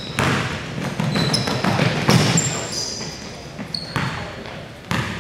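Basketball game in a gym: the ball thudding on the floor several times and sneakers giving short, high squeaks on the court, with players' voices.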